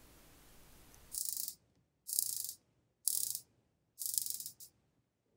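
Rolex Submariner 126610LN's unidirectional ceramic dive bezel being turned in four short spins about a second apart, each a rapid run of crisp ratchet clicks lasting about half a second.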